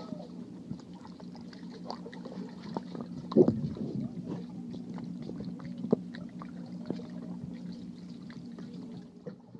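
Muffled underwater sound of a dog diving and paddling down through pool water: a steady low hum with scattered clicks and knocks. The loudest knock comes about three and a half seconds in.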